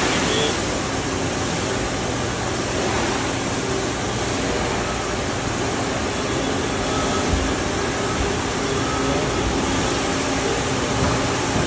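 Hardinge Quest 8/51 CNC lathe running its warm-up cycle: a steady whirring hiss of machine noise with a faint even hum underneath.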